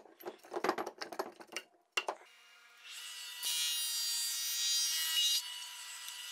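Metal pipe clamps being loosened and rattled off a glued-up board, then a jointer's motor running with a steady hum. About three seconds in, the cutterhead bites into the board for about two seconds as it is fed across, then the machine runs on empty.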